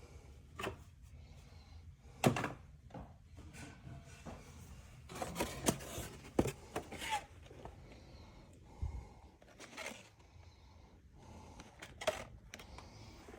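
Objects being handled in a small room: scattered clicks, knocks and rustles, the sharpest knock about two seconds in and a busy run of them midway.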